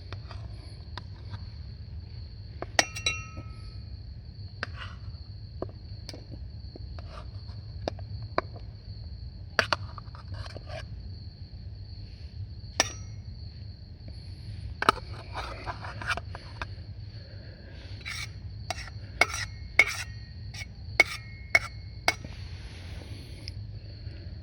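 Metal utensils clinking and scraping against camp cookware while cooking over a fire pit: scattered light knocks, several with a brief metallic ring, coming thicker in the second half. A steady high-pitched tone runs underneath.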